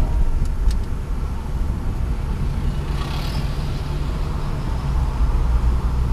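Rover 25 GTi's 1.8 VVC engine droning low and steady under road and tyre rumble while driving. An oncoming van passes close with a whoosh about three seconds in.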